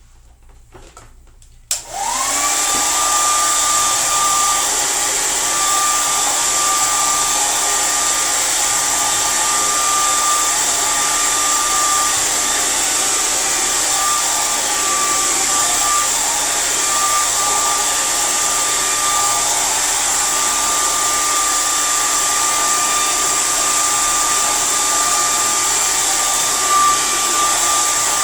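Handheld hair dryer switched on about two seconds in, spinning up quickly, then running steadily with a whine and rushing air while blow-drying hair.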